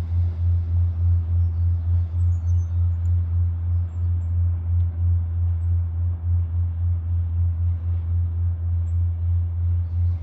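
Low, steady engine drone pulsing about three times a second, with a few faint bird chirps.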